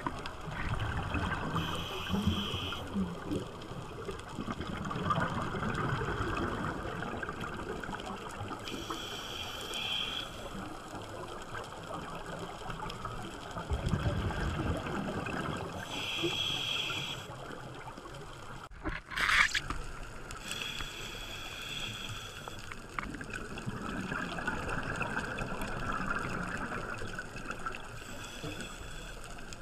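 Scuba regulator breathing heard underwater: a short hiss of inhalation about every six to seven seconds, with gurgling bubbles of exhaled air between them. One brief sharp noise, the loudest moment, comes about two-thirds of the way through.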